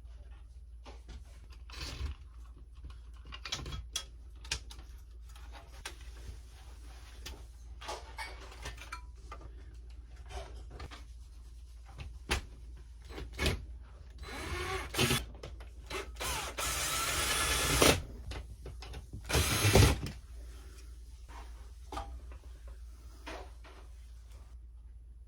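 Power drill running in a few short bursts, the longest about three seconds, while a ceiling fan is put together and mounted, with scattered clicks and knocks of parts being handled.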